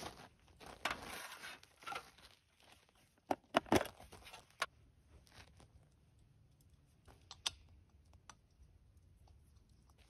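Intermittent crinkling and rustling of objects being handled, with several sharp clicks and taps; the loudest cluster comes three to four seconds in, and sparser ticks follow.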